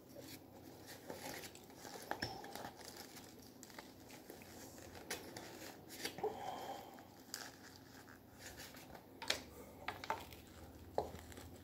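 Faint crinkling and rustling as food is handled on a paper plate, with scattered small clicks and taps; near the end, a bite into a sandwich.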